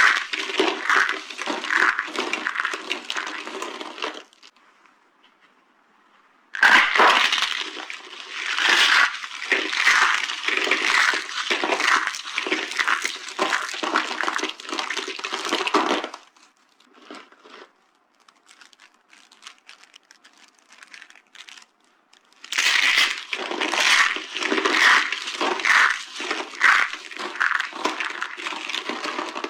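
Dry soap being crushed, a dense crackling and crunching in three long spells with short pauses between them. During the pauses only a few faint crackles are heard.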